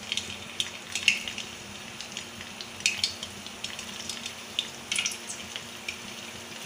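Flour-coated boiled macaroni deep-frying in hot oil in a kadhai, sizzling with irregular crackles and pops as more pieces are dropped in by hand.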